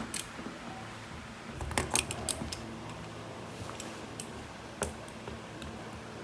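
Scattered sharp clicks and taps over a steady low hum, with several in a quick cluster about two seconds in.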